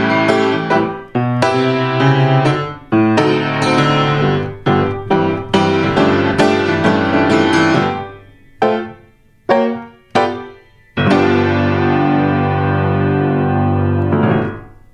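Solo grand piano: a flowing run of struck chords for the first half, which breaks up after about eight seconds into a few separate chords, then a final chord held for about three seconds and released just before the end.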